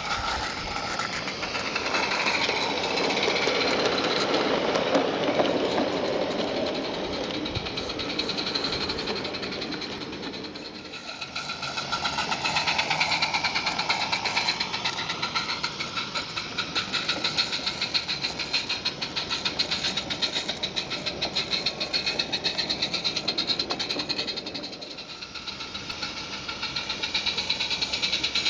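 Roundhouse Fowler live-steam garden-railway locomotive running with a short passenger train, its exhaust a rapid, even chuffing with wheels clicking on the rails. It grows louder and fainter as it passes by, dipping about ten seconds in and again near the end.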